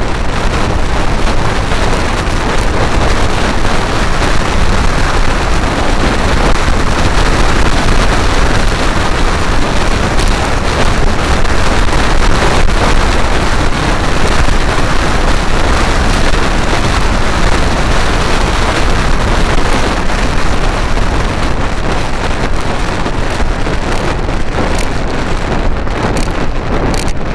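Loud, steady wind noise rushing over the microphone of a camera on a moving Vespa GTS scooter, with road noise beneath.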